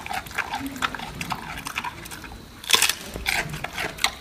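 Giant panda chewing bamboo: a quick run of crisp crunches and cracks, with one louder crack a little under three seconds in.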